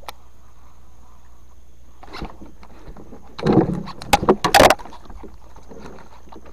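Close rubbing against the microphone about three and a half seconds in, followed by three sharp knocks on the hull of a small boat as someone shifts about in it, with a smaller knock a little earlier.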